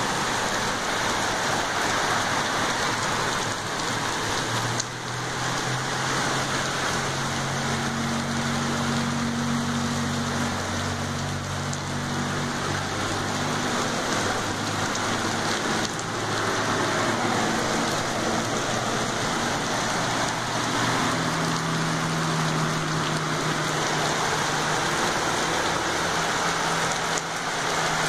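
Heavy downpour falling steadily on a flooded street and lawn, with a pickup's tyres splashing through standing water at the start. A low engine hum from passing traffic sounds under the rain for several seconds at a time, in two stretches.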